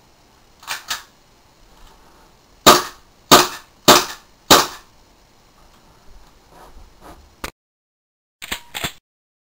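Airsoft pistol firing four sharp shots about half a second apart, with two faint clicks before them and two quieter clicks after a break near the end.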